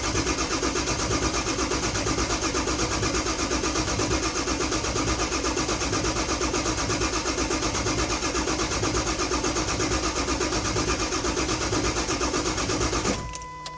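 Ford 7.3 Power Stroke V8 diesel being cranked by its starter without firing, a steady rhythmic churn of about four pulses a second: a crank-no-start. The cranking stops abruptly near the end, leaving a brief steady high tone.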